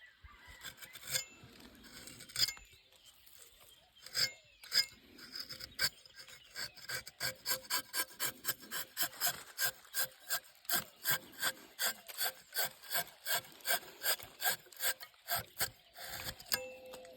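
Rhythmic rasping strokes of a blade or file scraping, a few scattered strokes at first, then a steady run of about three strokes a second that stops shortly before the end.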